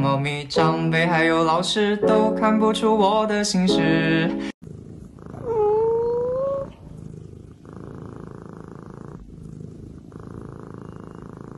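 Music with a singing voice for the first few seconds, then a sleeping kitten purring in long even stretches with short breaks between breaths, after one drawn-out rising cry.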